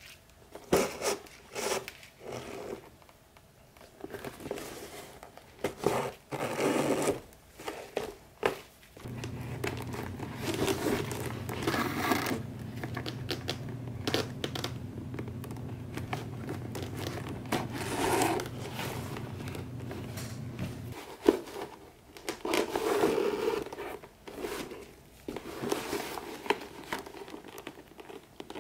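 Hand saddle-stitching leather: needles pushed through the stitching holes and thread drawn tight through the leather in a run of short scraping, rasping pulls. A steady low hum runs through the middle stretch, from about a third of the way in to about two thirds.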